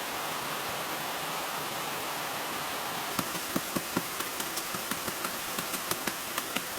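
Steady hiss of background noise, joined about three seconds in by a quick run of sharp taps or knocks, about four to five a second, as of something being struck repeatedly.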